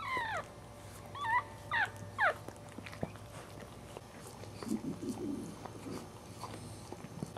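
Newborn Cairn Terrier puppy giving four short high-pitched squeals, each falling in pitch, in the first couple of seconds, followed by softer low sounds as the mother licks it.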